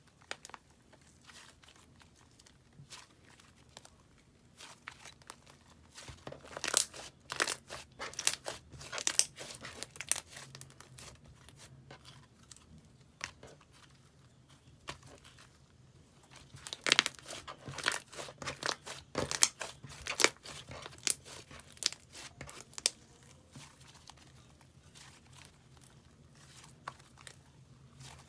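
Slime being squeezed and stretched by hand, giving sticky crackling pops and clicks. They come thickest in two spells, about six to ten seconds in and again about sixteen to twenty-one seconds in, and are sparse in between.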